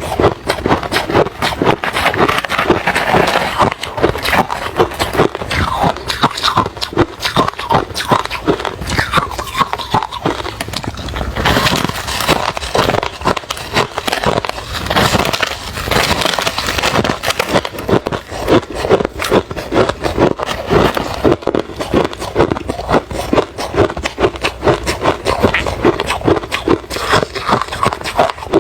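Close-miked chewing of refrozen crushed ice, a fast unbroken run of crisp crunches and crackles as the ice is bitten and ground between the teeth.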